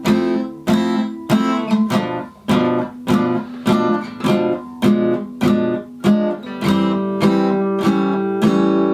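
Acoustic guitar strummed with steady down strums, about three every two seconds, through a jazz chord progression: F major 7, B minor 7 flat 5, E7 flat 9, then A minor 7 to A7. The last chord is left ringing near the end.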